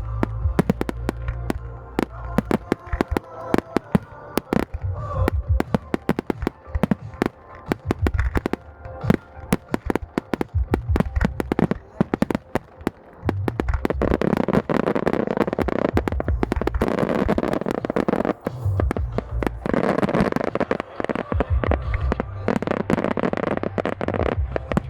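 Fireworks display: a rapid series of sharp bangs from bursting shells and firecracker effects, over background music with a low beat. Past the middle and again near the end the bursts run together into a dense, continuous stretch.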